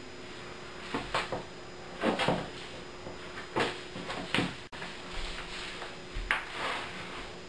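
High-heeled boots knocking on a tile floor in a few irregular steps, with a louder knock of a knee dropping to the floor near the end.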